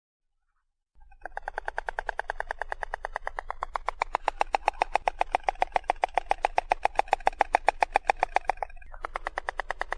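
Stork clattering its bill: a rapid, even run of clacks that starts about a second in, grows louder midway, and breaks off briefly near the end before starting again.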